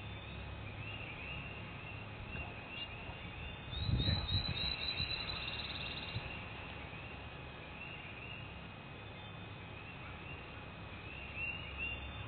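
Small songbirds chirping repeatedly over a steady low rumble, with a quick high trill and a louder, brief low rumbling burst about four seconds in.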